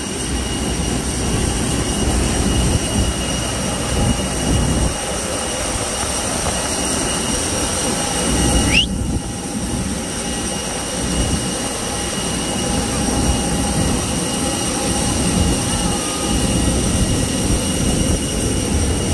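Steady whine and rumble of jet airliner turbines on an airport apron, with several high tones held level over a rough low rumble. A brief rising whistle cuts through about nine seconds in.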